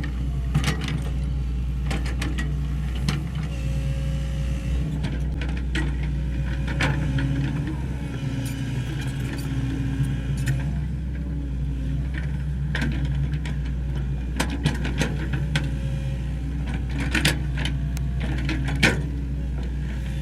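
Sany SY75C excavator's diesel engine running steadily, with sharp knocks and clanks scattered throughout.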